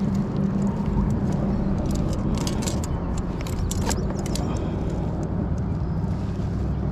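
Steady low rumble with a run of sharp clicks and knocks about two to four seconds in, as a freshly caught bluefish is handled on a kayak to be measured.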